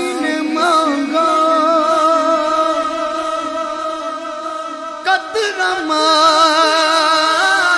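A solo male voice singing a naat, holding long, wavering ornamented notes with no words; about five seconds in the line breaks and a new, higher phrase begins.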